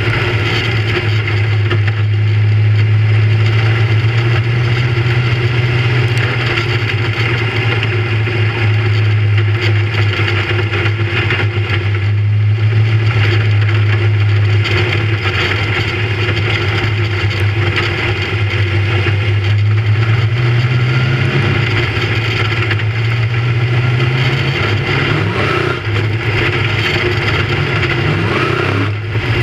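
Big-block V8 dirt modified race engine running hard under racing load, heard from inside the car's open cockpit, its note easing and climbing a little through the laps.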